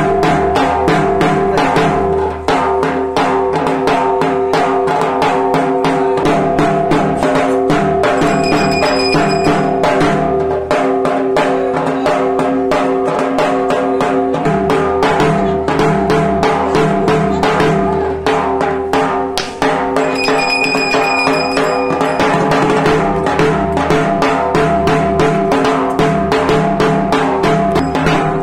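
Barrel drum, a dhak, beaten in a fast, continuous rhythm, over music with steady held notes.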